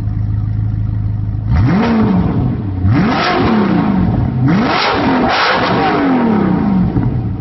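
A 2014 Audi R8's 4.2-litre V8, heard at the tip of its Armytrix titanium valvetronic exhaust, idling and then revved four times. The pitch rises sharply on each blip and falls back to idle.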